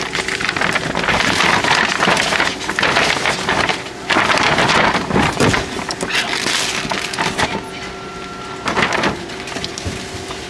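Loud rustling and crinkling close to the microphone in irregular surges, as a paper gift bag and box are handled.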